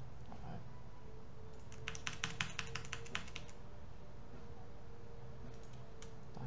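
Typing on a computer keyboard: a quick run of about a dozen keystrokes over a second and a half, starting about two seconds in, over a steady faint hum.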